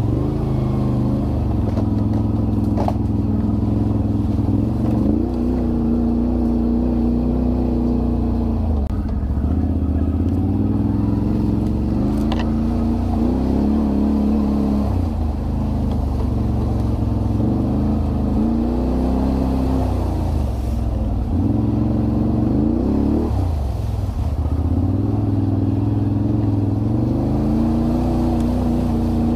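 All-terrain vehicle engine running under varying throttle on an off-road trail, its pitch rising and falling again and again as it speeds up and eases off. A couple of brief sharp clicks from the vehicle rattling over the ground.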